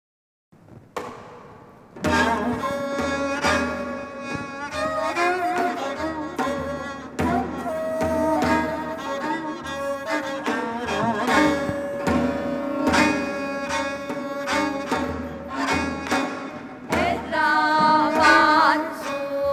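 Namdo minyo, southern Korean folk song, played by a traditional ensemble of daegeum flute, bowed ajaeng and janggu and buk drums, with women singing in sliding, wavering lines over a steady drum rhythm. It begins softly and the full ensemble comes in about two seconds in.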